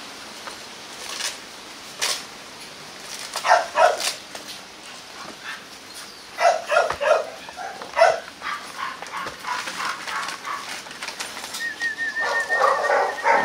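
Rottweiler puppies yapping and barking in several short bursts as they play, with a denser flurry of yaps near the end.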